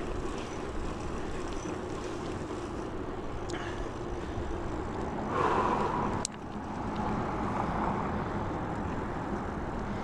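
Steady road and wind noise while riding a bicycle in traffic, with a vehicle going past about five seconds in and a sharp click just after.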